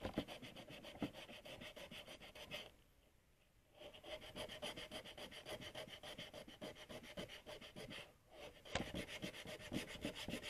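Sandpaper rubbed by hand over the weathered plastic of a monoblock chair in rapid back-and-forth strokes, a dry rasping scrub in three bouts with two short pauses. It is scouring off the chalky, eroded top coat.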